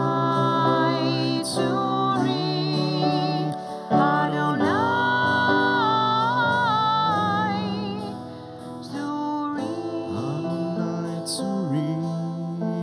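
Slow worship song: a voice sings long held notes with vibrato over steady instrumental accompaniment.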